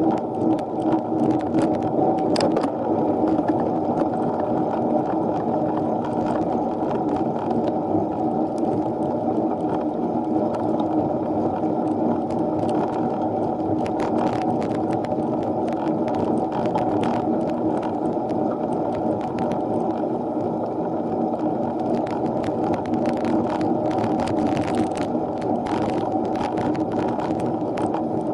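Steady road and wind noise from a mini velo bicycle being ridden uphill, heard through an action camera's microphone, with scattered light clicks from the bike.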